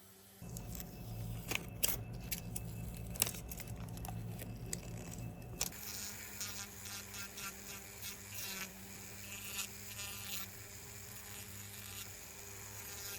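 A small electric motor running with a steady buzzing hum, with scattered clicks and scrapes on top.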